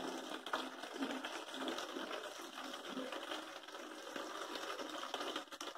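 Faint, irregular clicking and rustling over a low hiss as a homemade cut-bottle aquarium gravel siphon draws water and debris up out of the gravel.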